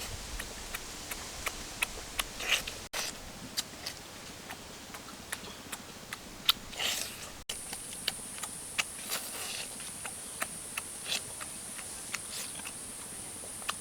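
Close-up eating sounds of chicken wings being bitten and chewed: a string of short, irregular wet clicks and smacks. A steady high-pitched whine joins about halfway through.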